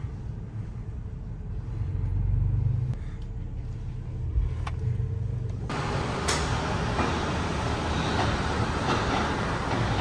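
Low engine and road rumble inside a moving pickup's cab. About six seconds in it switches suddenly to the steady hiss of a car repair shop's background noise.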